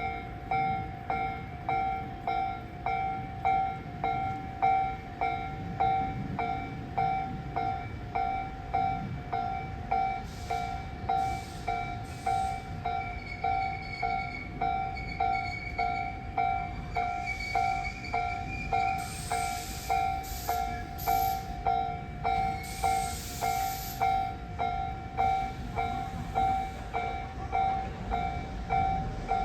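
Japanese level-crossing warning bell dinging steadily about once a second while a train runs through the station, with a low rumble. In the second half there is a faint rising whine and several short bursts of hiss.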